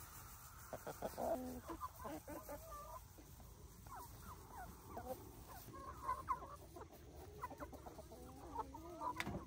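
A flock of chickens clucking, many short calls coming one after another. A single sharp knock near the end.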